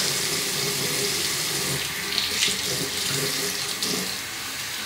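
Bathroom sink faucet running hot water into the basin, a steady hiss, with some splashing as a face scrub is rinsed off.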